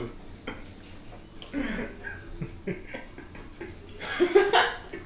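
Men laughing, with a loud burst of laughter about four seconds in and a shorter laugh earlier, and a few light clicks between.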